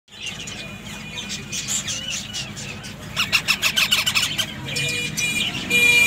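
Parrot nestlings calling: thin high chirps at first, then about three seconds in a fast, loud run of repeated chirps, then louder buzzy squawks near the end.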